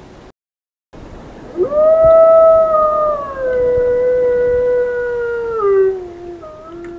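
Indian wolf giving one long howl that rises quickly at the start, holds its pitch, then slides down in steps to a lower note before fading out.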